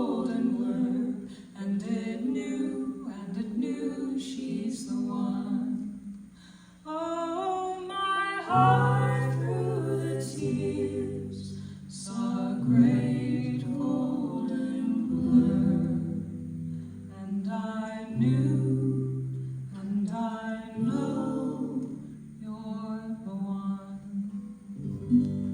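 Folk vocal group singing in close harmony without words, with low held notes entering about eight seconds in and carrying on in phrases.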